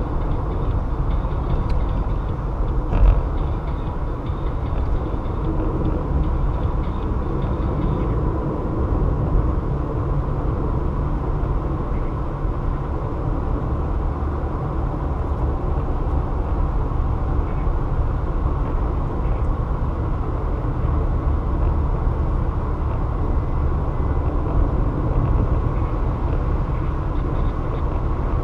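A car driving at highway speed: steady low rumble of tyres and engine, with a faint steady whine and a brief thump about three seconds in.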